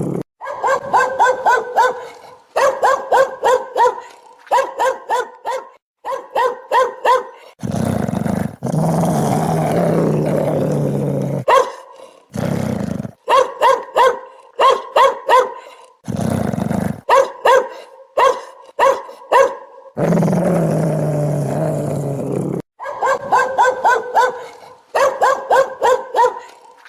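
An angry dog barking in quick volleys of four or five barks, broken by low growls, two of them lasting several seconds.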